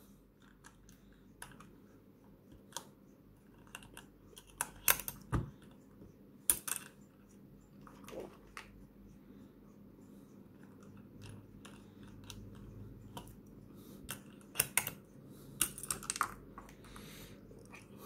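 Scattered plastic clicks and clacks of keycaps being pulled off and pressed onto the switches of a small mechanical macropad, in irregular bursts with several in quick succession near the middle and near the end.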